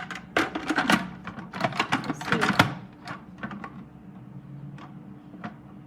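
Plastic parts of a small electric food chopper clicking and knocking as they are handled and fitted together, with a quick run of clicks in the first few seconds and only scattered ones after.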